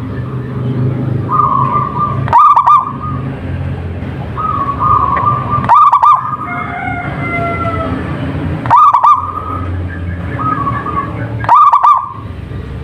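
Zebra dove (perkutut) singing its stuttering cooing song, four phrases about three seconds apart, each led by a held note, over a steady low hum.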